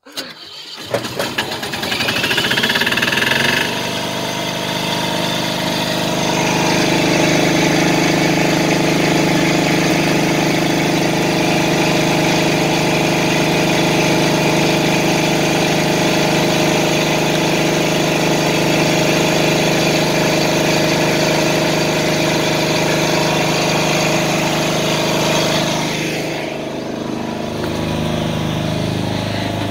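Generator set's engine started with a key: it cranks briefly and catches within about a second, its note rises, then it settles into steady running. About 26 seconds in the sound turns duller and lower.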